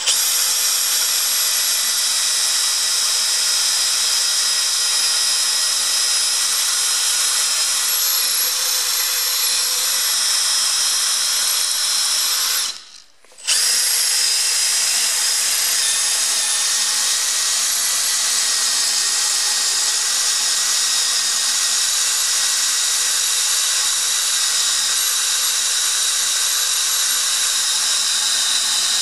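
Power drill running steadily as a twist bit drills into a broken steel bolt in a tractor axle hub flange, its motor stopping for under a second about halfway through and then starting again. The bolt feels hard and the bit is not biting well.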